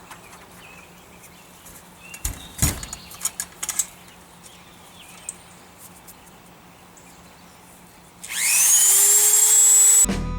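Dremel 3000 rotary tool switched on near the end: its whine rises quickly in pitch as the motor spins up, then holds a steady high whine for about two seconds before stopping abruptly. Before it, a few light clicks and knocks of handling; music starts just at the end.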